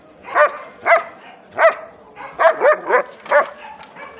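German Shepherd barking: about seven sharp, fairly high-pitched barks, spaced out at first and then coming in a quicker run in the second half.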